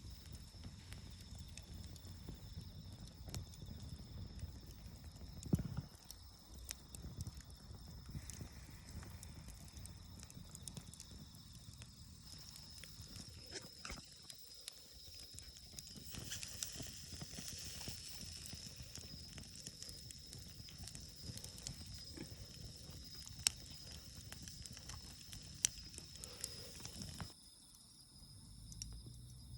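Wood campfire crackling with irregular sharp pops and a low rumble, over a steady high chirring of insects. Near the end the fire's rumble drops away and the insect chirring carries on.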